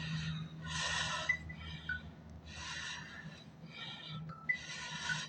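A person breathing hard close to the microphone: short, hissy breaths about once a second, some with a faint whistle.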